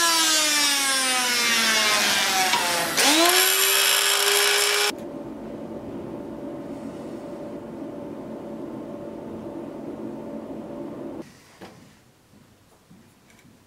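Small high-speed rotary grinder with a cylindrical bit grinding the steel of a sword handle: its whine drops in pitch as the bit is pressed into the work, rises back to full speed about three seconds in, and cuts off sharply about five seconds in. A quieter steady hum follows, then a few faint scrapes near the end.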